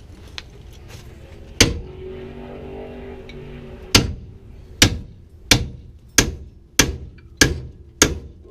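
Hammer blows on a ball joint separator wedged into a 2003 Chevy S10's upper ball joint, driving it to pop the joint loose. One blow, then after a pause seven more at an even pace of about one and a half a second, each ringing briefly.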